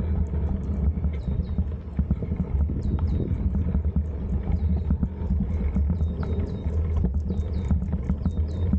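Mountain bike rolling over asphalt with wind rumbling on the microphone, under a steady patter of light clicks and short, high, falling chirps that repeat every second or so.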